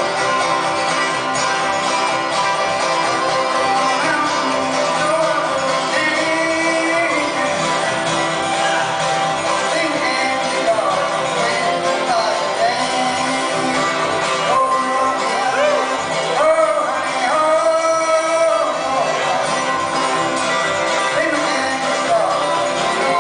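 Five-string banjo played clawhammer style, a steady run of plucked notes, with a voice singing over it in places.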